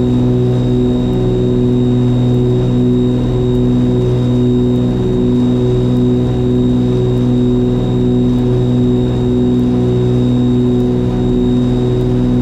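Cabin sound of a Piper Aerostar 700's two piston engines running steadily at climb power just after takeoff. The drone swells and fades in a slow throb about once a second.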